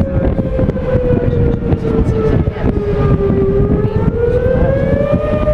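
Outdoor tornado warning siren wailing, its single tone slowly falling in pitch and then rising again near the end, over a loud low rumble.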